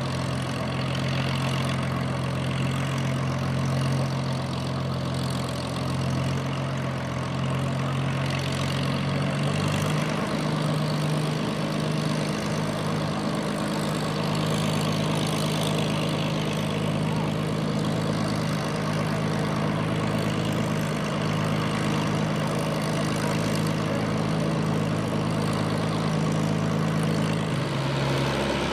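Supermarine Spitfire's Rolls-Royce Merlin V12 engine idling steadily on the ground, propeller turning. The engine note steps up slightly about ten seconds in.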